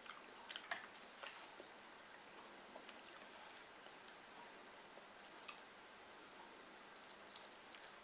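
Faint, scattered wet clicks and squishes of eating by hand: chewing with lip smacks, and fingers mixing rice and fried fish on a steel plate. The clicks are closest together in the first second or so and sparser after.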